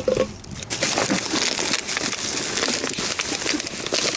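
Black plastic garbage bag rustling and crinkling as gloved hands rummage inside it, with scattered light knocks from the things in the bag.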